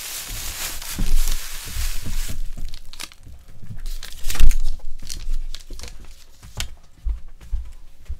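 Aluminium foil and a plastic bag crinkling as a foil-wrapped takeaway chicken is unwrapped. This is followed by scattered crinkles and sharp taps as a paper chopstick wrapper is handled and torn open.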